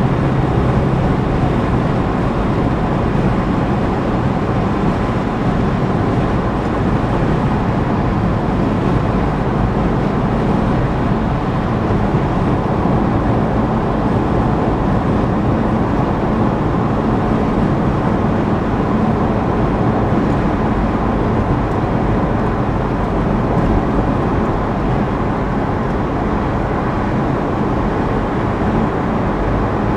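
Steady road noise of a car driving at highway speed: tyre and wind noise with a low, even engine hum.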